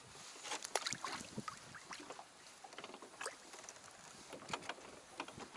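Water lapping against a small hand-rowed boat, heard as irregular small clicks, knocks and splashes over a steady hiss.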